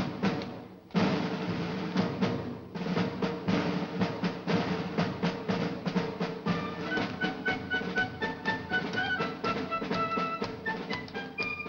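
Orchestral Irish-style dance music with a fast, even run of sharp percussive taps in time with it; from about six seconds in, a high melody of short held notes rides over the top.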